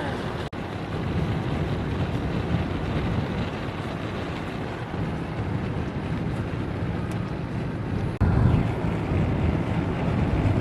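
Wind buffeting the microphone outdoors, a steady low rumbling noise, with the sound shifting abruptly about half a second in and again about eight seconds in.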